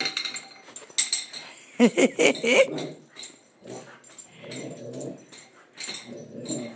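Young dog playing with a nylon Nylabone chew toy on a hard tile floor: the toy and her claws click and clatter on the floor, with a few short whines about two seconds in and low play growls later on.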